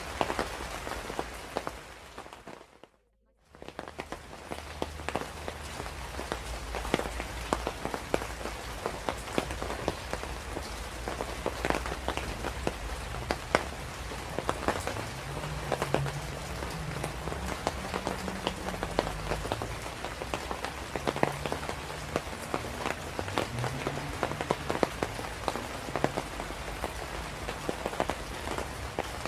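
Steady rain falling, with many close individual drops ticking sharply through the hiss. About three seconds in it fades out to near silence for a moment, then swells back in.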